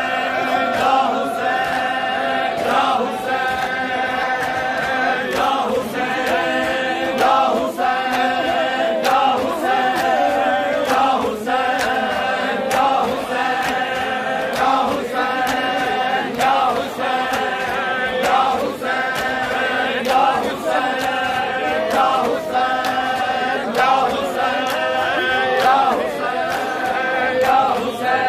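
A group of men chanting a noha, a Shia lament, in chorus with a steady melody. Sharp slaps of hands on bare chests (matam) keep a regular beat under the singing.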